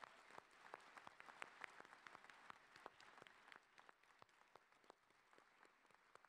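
Faint audience applause, a dense patter of clapping that thins out over the last few seconds.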